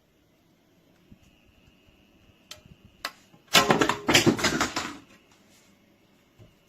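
Handling noise: a few sharp clicks, then about a second and a half of rapid, loud clattering.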